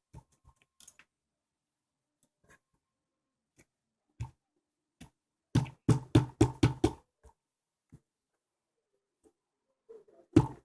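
Store-bought slime being squeezed and poked by hand, giving scattered soft clicks and then a quick run of about eight loud sticky pops a little over halfway through.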